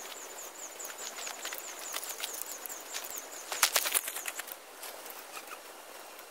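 Irregular sharp crackles and snaps, with a quick cluster of them about three and a half seconds in. A faint high chirp repeats several times a second during the first couple of seconds.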